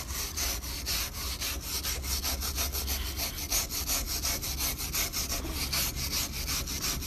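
Hand scrub brush rubbed rapidly back and forth over a rubber tyre's dirty whitewall sidewall, about five scrubbing strokes a second.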